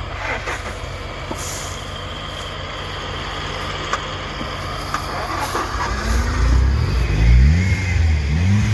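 Car engine running steadily at low revs, then from about six seconds in revved up and down several times, louder.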